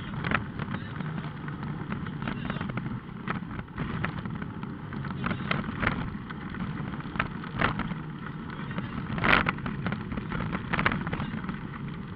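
Rally car engine running steadily under load, heard from inside the cabin while the car drives a gravel road, with stones and suspension knocking against the body; the loudest knock comes about nine seconds in.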